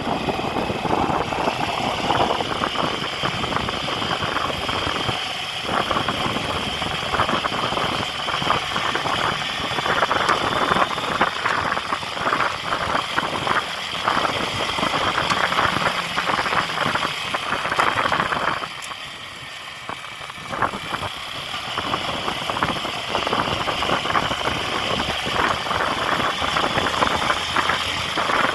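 A vehicle engine running with a steady rattle, dropping quieter for a couple of seconds about two-thirds of the way through before picking up again.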